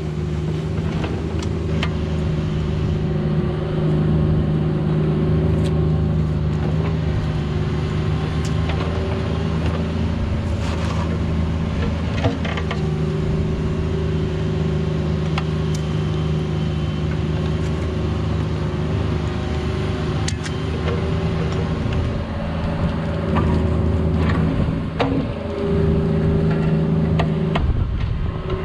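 Cat 304 mini excavator's engine running steadily while digging, its note swelling now and then under load, with scattered sharp knocks.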